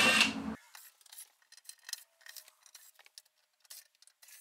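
Cordless drill-driver running as it backs screws out of an amplifier's case, stopping about half a second in. Scattered faint metallic clicks and ticks follow.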